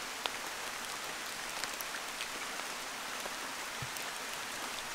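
Water drops pattering steadily onto the surface of a shallow stream, with an occasional louder drip or plop.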